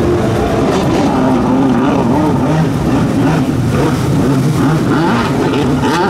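Two-stroke jet ski engines running close by, their pitch rising and falling as the riders throttle through turns.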